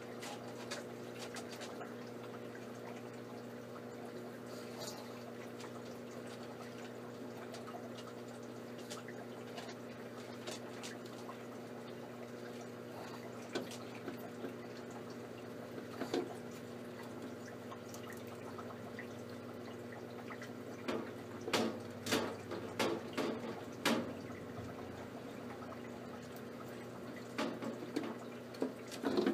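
A steady low hum with scattered small clicks and taps, which come in a denser run in the last third.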